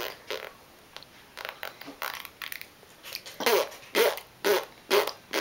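A young child blowing raspberries through pursed lips: faint at first, then from about halfway a run of short, loud sputtering bursts, about two a second.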